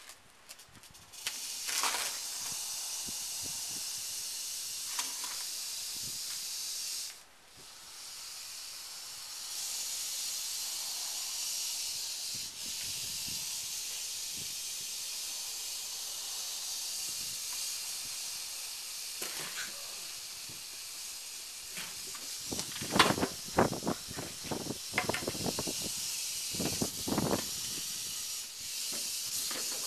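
Northern Pacific rattlesnake rattling, a continuous high buzz that breaks off briefly about seven seconds in and then resumes. In the last third, rustling and sharp knocks from the cloth bag and plastic bucket being handled sound over the rattle.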